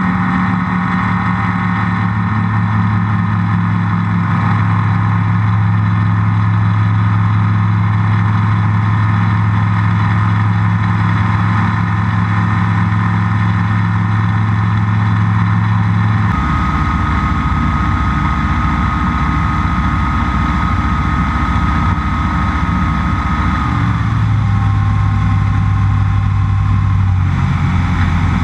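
Rans S7S's Rotax 912 flat-four engine and propeller running at takeoff power through the takeoff roll and climb-out, a loud steady drone picked up outside the cabin. About sixteen seconds in the sound changes abruptly, the steady low hum giving way to a rougher noise with a higher steady tone, and it shifts again briefly near the end.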